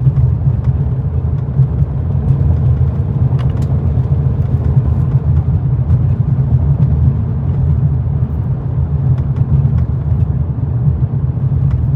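The 2021 Mercedes-Benz E350's four-cylinder engine running, a steady low rumble.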